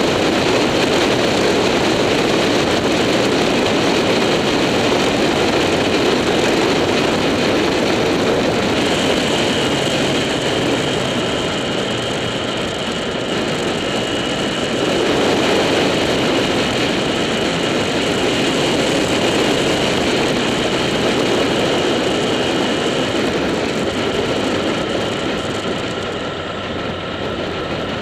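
Motorcycle riding at road speed, heard through a bike-mounted action camera: steady wind rush over the camera with the engine running underneath, swelling and easing through the bends. A thin high whine sits on top from about a third of the way in until near the end.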